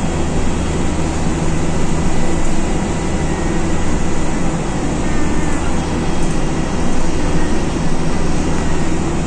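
Alexander Dennis Dart single-deck bus on the move, heard from inside its cabin: a steady engine drone with road noise.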